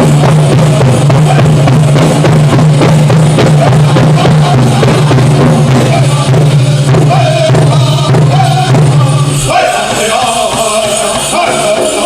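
Powwow drum group singing a chicken dance song over the steady beat of a big hand drum. The drumbeat stops about nine and a half seconds in while the singers' voices carry on.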